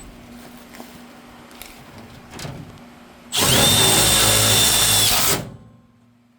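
Light handling clicks, then a power drill runs for about two seconds with a high whine that rises quickly and holds steady, before it stops and winds down.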